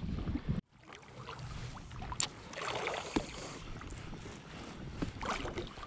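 Lake water lapping and sloshing gently against a float tube, with a few small clicks and two soft swells of splashing.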